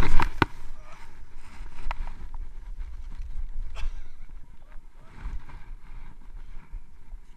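Skis hissing and scraping through deep, soft snow, with a loud cluster of knocks at the start and scattered clicks after; a low rumble of wind on the microphone runs underneath.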